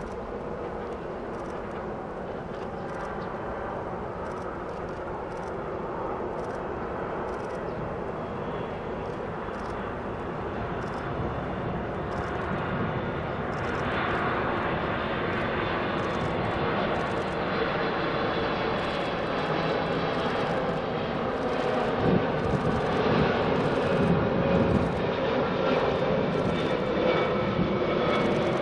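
Boeing 777-200 jetliner on final approach with gear down: its jet engines rumble and whine, growing steadily louder as it draws closer, with several whine tones coming in about halfway through.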